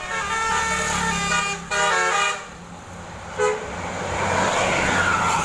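Bus telolet horn, a set of musical air horns, plays a short tune of stepped notes for about two seconds, then gives a brief toot, over the low drone of the bus engine. A rushing noise swells near the end.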